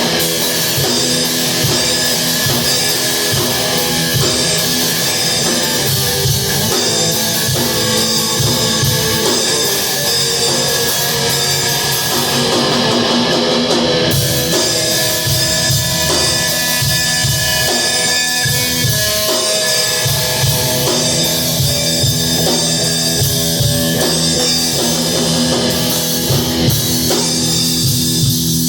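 Electric guitar and drum kit playing a loud rock piece together, the drums keeping a steady beat under sustained guitar chords.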